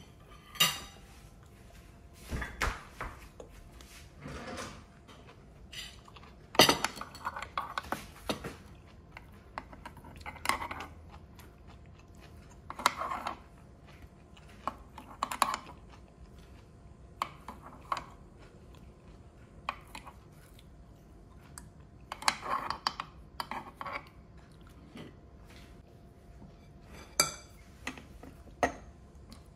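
Metal utensils clinking and scraping against the nonstick wells of a mini cupcake maker and a plate while the baked mini cupcakes are lifted out. The sounds are short, irregular knocks and scrapes with pauses between them.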